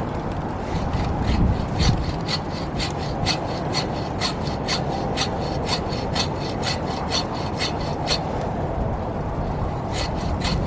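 Hand saw cutting through a tree-top branch in quick, even strokes, about three a second. The sawing pauses about 8 seconds in and resumes near the end. Strong wind rumbles throughout.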